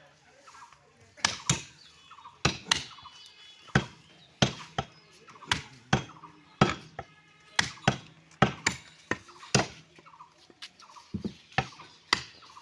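A butcher chopping beef with a heavy knife, a run of sharp, irregular chops about one to two a second, starting about a second in.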